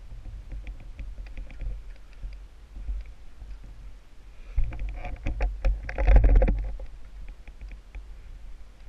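Close handling noise from black leather riding gloves being pulled on: rustling, creaking and small clicks, with a denser, louder stretch of scraping about halfway through. A low rumble sits underneath throughout.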